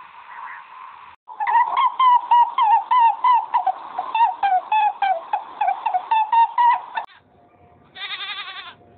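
A rapid run of short, honking bird calls, several a second, lasting about six seconds. Near the end comes a short, wavering sheep bleat.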